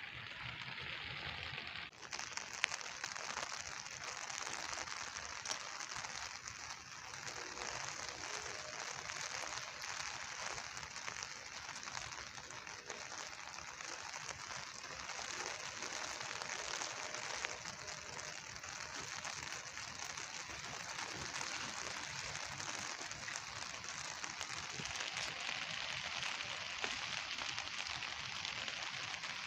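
Steady rain falling, a dense hiss of many small drops pattering.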